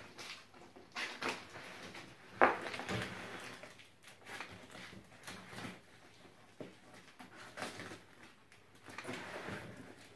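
Cardboard shipping box being slit open with a small blade: intermittent scraping and rustling of cardboard and packing tape, with one sharp tap about two and a half seconds in.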